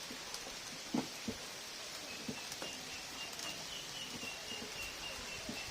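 Steady hiss of light rain, with a few soft knocks in the first half and a faint, rapid, high-pitched chirping from about two seconds in.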